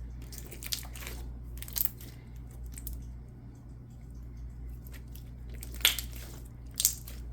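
Tacky clear slime being squished and stretched by hand, giving a soft crackle and a handful of sharp sticky pops, two louder ones near the end. A low steady hum sits underneath.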